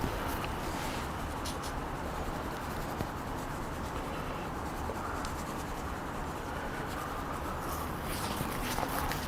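Hands working a dry spice rub onto a rack of pork ribs: steady rustling and rubbing with faint ticks.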